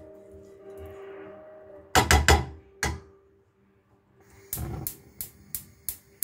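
Silicone pastry brush knocking and tapping against a nonstick frying pan while oiling it: a quick cluster of three loud knocks, one more a moment later, then a short scrape and a string of lighter taps near the end.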